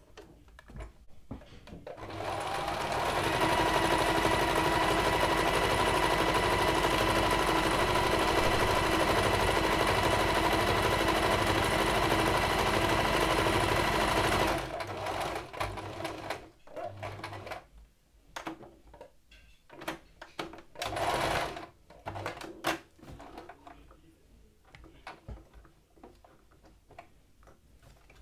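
Singer Tradition 2282 sewing machine stitching. It speeds up about two seconds in, runs at a steady speed, and stops about halfway through. After that come scattered clicks and one more short burst of stitches.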